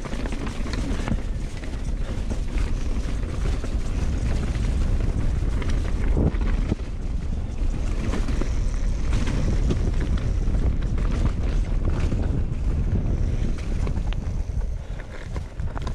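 Wind rushing over the microphone of a bar-mounted camera on a mountain bike descending at speed, with the tyres rumbling and crunching over loose rocks and gravel and the bike rattling in many short clicks. The noise eases slightly near the end as the track becomes smoother.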